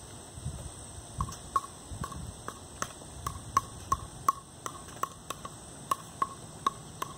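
Plastic pickleball tapped repeatedly straight up off a paddle: a quick, even run of hollow pocks, about three a second, starting about a second in.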